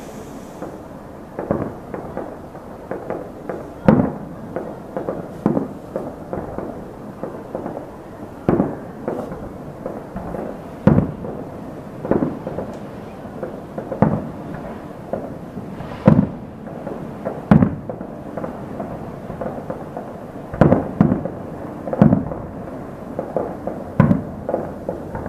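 Aerial fireworks shells bursting in a steady run of booms about one to two seconds apart, each bang followed by an echoing tail.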